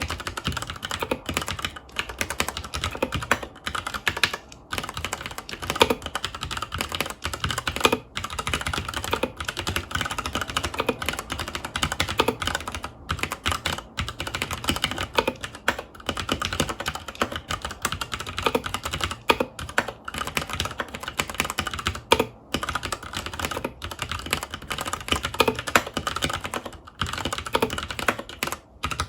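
Continuous fast typing on a FILCO Majestouch 2 HAKUA mechanical keyboard with Cherry MX Brown switches: a dense, steady clatter of keystrokes with brief pauses now and then.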